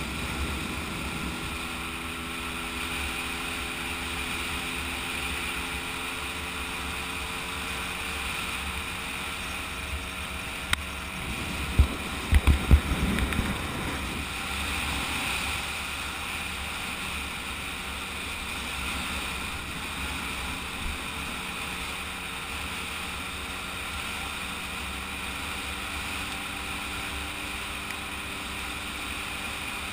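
Kreidler moped engine running steadily at cruising speed, with heavy wind rumble on the microphone. A brief cluster of thumps comes about twelve seconds in.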